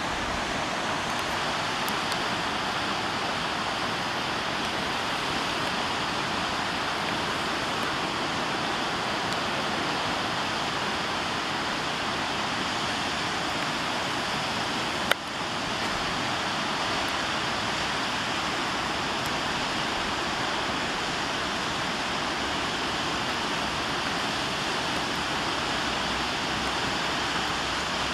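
Steady rushing of a river, an even wash of water noise that never changes, broken once about fifteen seconds in by a single sharp knock.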